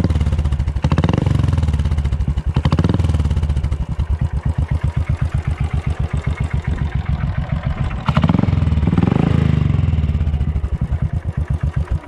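Royal Enfield Classic 500's single-cylinder engine running through an aftermarket Dolphin silencer, idling with an even, heavy-bass 'dug dug' thump. It is blipped up and back down four times: about a second in, near three seconds, and twice near the end.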